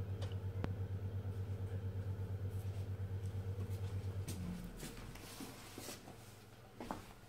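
A kitten held against a man's chest purring, a low rapid rumble that stops abruptly about four seconds in as the kitten starts to move. Faint rustling and a few light clicks follow.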